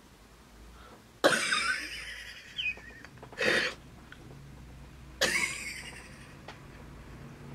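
A woman coughing twice, about four seconds apart, with a shorter breathy burst in between.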